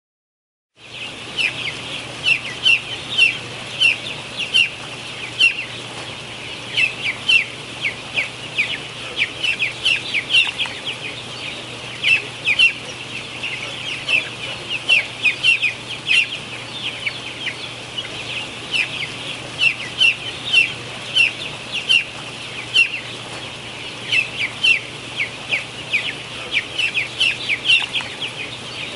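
A flock of broiler chickens peeping and chirping continuously, many short high calls overlapping, over a steady low hum. The sound starts about a second in.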